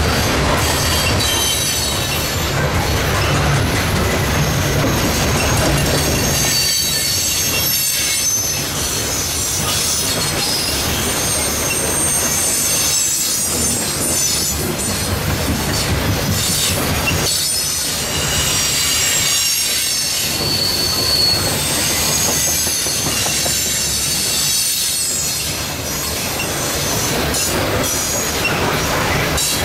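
A loaded coal train's cars rolling past, steel wheels on rail with high, wavering wheel squeal throughout over a steady low rumble.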